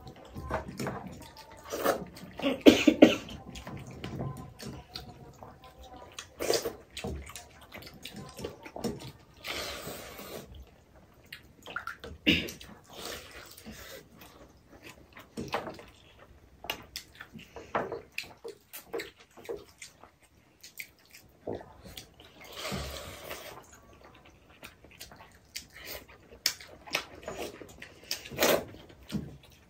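Two people eating pakhala (rice soaked in water) by hand from steel bowls: wet slurping, chewing, and fingers splashing in the watery rice, with many small clicks and several louder slurps scattered through.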